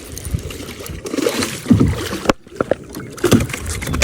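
Kayak handling noise while a hooked bass is being fought: irregular knocks and thumps on the hull and water noise, with a brief dropout a little past halfway.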